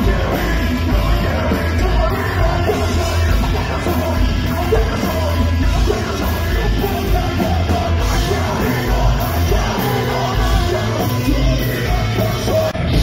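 Live rock band playing loud: electric guitars, bass and drums, with shouted vocals over the top. The music breaks off briefly near the end.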